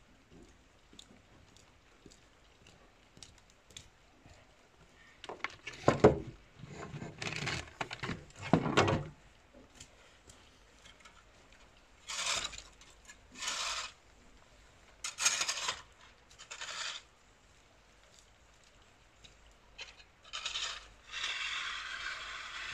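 A mucking-out shovel scraping and knocking on a concrete yard in several short bouts, the loudest with heavy knocks about six to nine seconds in. Near the end, a steady rustle of footsteps through loose straw.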